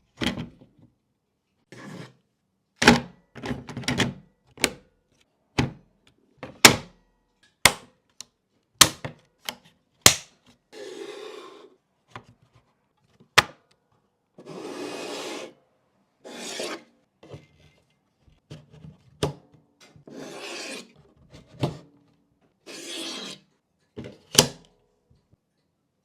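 A dozen or more sharp clicks and knocks, irregularly spaced, with about five rubbing or scraping sounds of about a second each between them, from something being handled.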